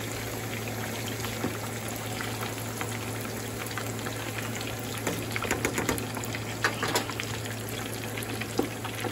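Trout pieces frying in hot oil in a stainless steel skillet: a steady sizzle with frequent small crackles and pops, busier from about halfway through, over a steady low hum.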